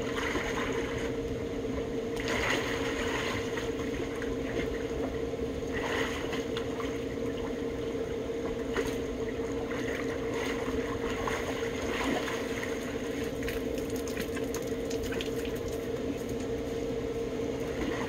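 Pool water splashing and sloshing as swimmers move and duck under in an above-ground pool, with a few louder splashes, over a steady mechanical hum.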